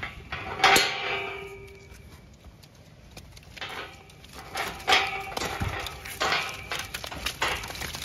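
Galvanised steel farm gate clanging and rattling: one sharp ringing clang about a second in, then several more knocks and rattles in the second half.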